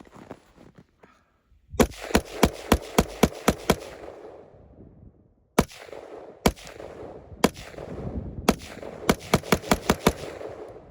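AR-15 semi-automatic rifle fired rapidly: a fast string of about nine shots, three single shots about a second apart, then another quick string of about seven shots, each shot echoing.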